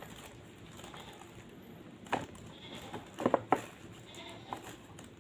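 A few sharp clicks and knocks from a handheld impact drill being handled, with no motor running. There is one click about two seconds in, a quick cluster of clicks about a second later, and a lighter one near the end.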